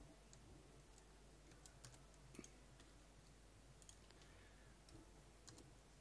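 Near silence with a few faint, scattered computer mouse clicks over a low steady room hum.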